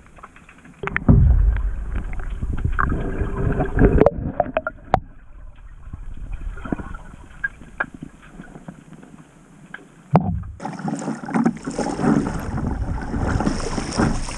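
Water splashing and lapping around a kayak being paddled, with scattered knocks and wind buffeting the microphone. A heavy low rumble runs from about a second in to four seconds, and a brighter rushing of water comes in for the last few seconds.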